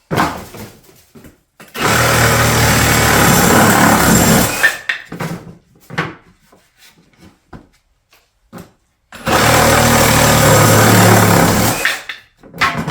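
A power saw cutting through a 1/2-inch by 4-inch board twice, each cut running about three seconds, with knocks from the wood being handled between the cuts.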